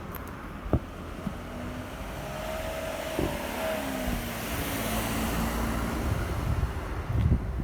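A vehicle passing close by: its noise swells over a few seconds and fades again, carrying a low steady hum whose pitch bends slightly as it goes by.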